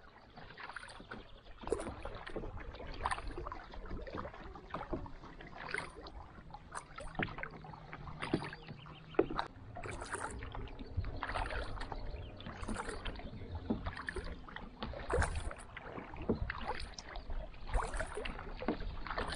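Kayak paddle strokes dipping into calm lake water in a steady rhythm, a splash and drip about once a second.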